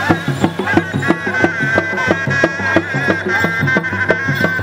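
Traditional Sundanese-style music: a reedy wind instrument holds a high, slightly wavering melody over quick, even hand-drum strokes.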